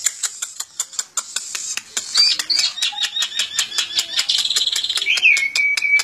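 Caged black-and-white starling singing: a rapid string of clicking notes, then from about two seconds in a run of short whistled notes, a fast high trill, and a long held whistle near the end.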